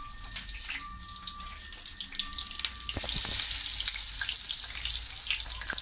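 Cheese-filled corn tortilla triangles coated in egg and crushed Doritos frying in hot oil: a crackling sizzle that grows louder about three seconds in.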